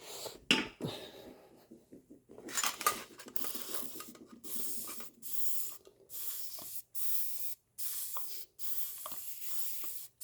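Aerosol degreaser sprayed in a run of short hissing bursts, about seven of them each lasting under a second, after a few clicks and knocks in the first two seconds. It is dissolving the old lithium grease on the disassembled hub axle parts.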